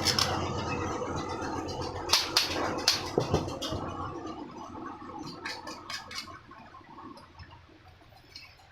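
Small metal parts of a table fan clicking and knocking as they are handled and the nuts fitted back on during reassembly: a few sharp clicks, bunched about two to three seconds in and again around six seconds, over a rushing background noise that fades away.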